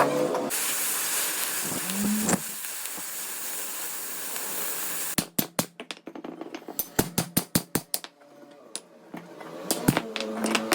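A steady hiss of workshop noise for about five seconds, then a quick, irregular run of sharp hammer knocks, about five a second, with a few more near the end.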